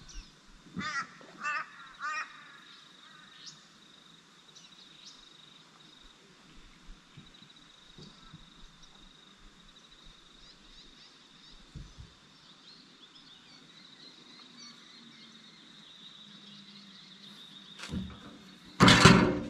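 A bird gives three harsh cawing calls in quick succession about a second in, over a steady high insect drone. Near the end comes a loud knock followed by a brief burst of rustling.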